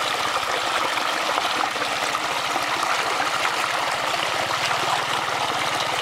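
Shallow water flowing and trickling steadily.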